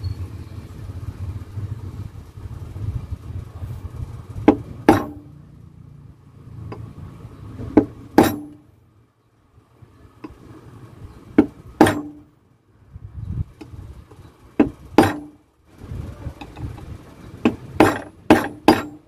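Hammer tapping the end of a screwdriver used as a punch on a small engine gear, knocking out a part that has been ground down: sharp metallic knocks with a short ring, mostly in pairs every three seconds or so, then four quicker taps near the end. A steady low hum runs underneath.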